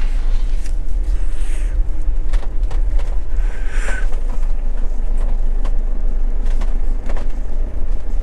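Cab noise of a Bailey Alliance motorhome moving slowly from the road onto beach sand: a steady low engine and tyre rumble with scattered clicks and rattles and a couple of brief hisses.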